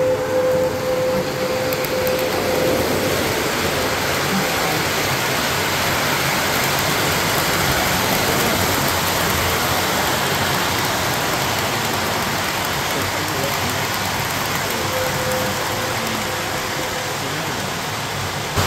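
O-gauge three-rail model trains rolling steadily along the track, with a model train's horn held for the first few seconds and sounding again, fainter, near the end.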